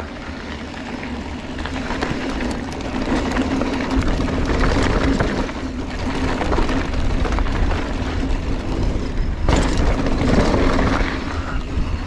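Giant Trance 3 full-suspension mountain bike rolling fast down a dirt trail: wind buffeting the camera's microphone, knobby tyres crunching over dirt and the bike rattling, getting louder as speed builds over the first few seconds.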